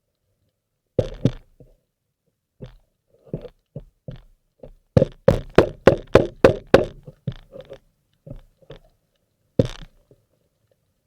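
Irregular sharp knocks. A quick run of about a dozen comes in the middle, roughly five a second, and a last single knock follows near the end.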